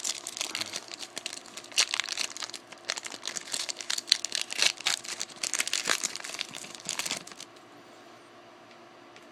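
Foil wrapper of a 2013 Topps Chrome trading-card pack crinkling and tearing open by hand, a dense run of crackles that stops about seven seconds in.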